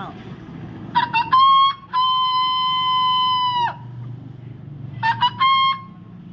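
A man imitating a bird call with his mouth: a few quick chirps, then one long steady whistling note that drops away at its end, then the quick chirps again, ending on a shorter held note.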